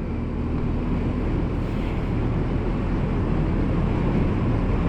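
Steady rush of wind and motorcycle riding noise picked up by a microphone inside a closed helmet, heaviest in the low end, in strong wind.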